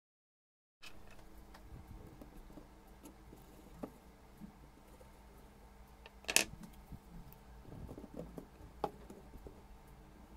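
Faint clicks and taps of small craft pieces being handled on a tabletop over a low steady hum, starting after a moment of dead silence. One sharp click about six seconds in is the loudest.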